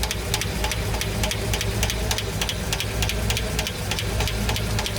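Pushrod V engine idling with the valve cover off one cylinder bank: a fast, even ticking from the exposed rocker arms and hydraulic lifters over the steady engine hum. This valvetrain noise is the fault being traced; the owner suspects a lifter that no longer runs well on the camshaft.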